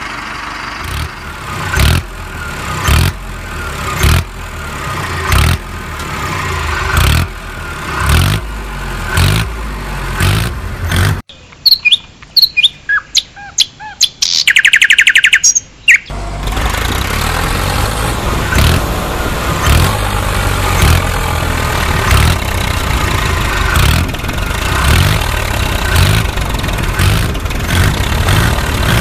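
Tractor engine sound effect with a regular low chugging thud a little faster than once a second. Around the middle it cuts out for about five seconds of high, bird-like chirps. It then returns as a steadier engine idle.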